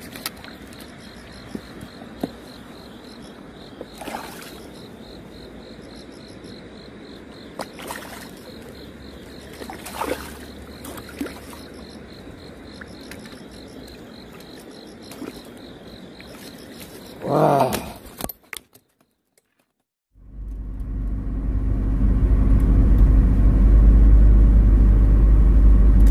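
Quiet outdoor ambience with a steady high chirring, scattered short clicks and knocks, and a brief wavering pitched call late on. After a second or two of silence it changes to a car driving, heard from inside: a low road rumble that builds louder over a few seconds.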